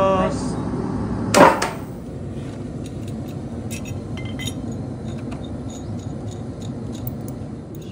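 A short loud knock about a second and a half in, then scattered light metallic clinks of a gear puller's arms and bolts being handled and fitted to the pulley of an old electric motor.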